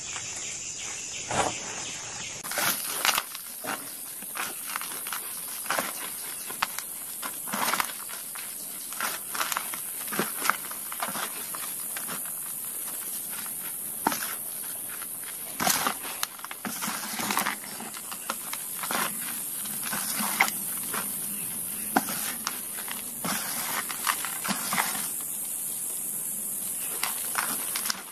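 Hands squeezing and crumbling soft gym chalk powder: an irregular run of crisp crunches and crackles, some much louder than others, over a steady high hiss.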